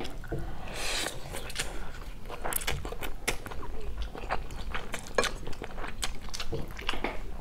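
Spaghetti slurped up and chewed close to a lapel microphone: a slurp about a second in, then chewing with many small wet mouth clicks.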